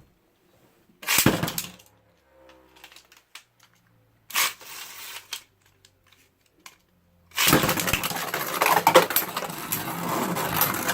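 Two short plastic clacks, then from about seven seconds in Beyblade spinning tops launched into a plastic stadium, whirring and clattering against each other and the stadium walls in a continuous rattle.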